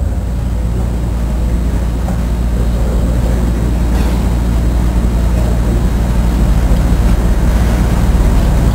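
Steady low hum with an even rushing noise, as from the room's wall fans and air conditioner running.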